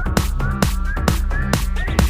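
Electronic dance background music with a fast, steady beat and a melody that climbs in pitch.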